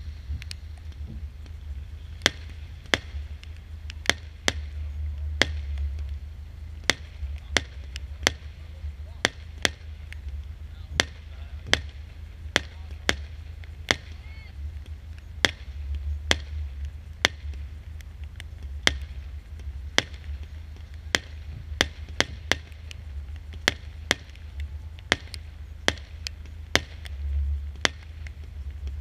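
Consumer fireworks firing a long series of shots, each aerial burst heard as a sharp bang, irregularly about one or two a second, over a low rumble.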